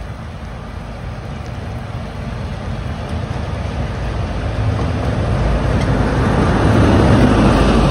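BR Peak-class diesel locomotive's Sulzer engine working as it hauls its train towards the listener and passes close by. It grows steadily louder, with the engine tone strongest near the end.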